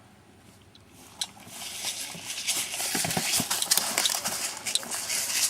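Crunching and rustling of dry dirt, twigs and leaves as someone moves over the ground close to the microphone. It starts about a second and a half in as a dense run of small cracks and scrapes.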